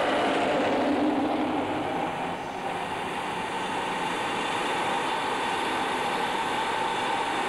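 Steady in-flight cockpit noise of a Tornado GR1 jet, the rush of airflow and its twin RB199 engines, with a level hum in it; the noise dips slightly about two and a half seconds in.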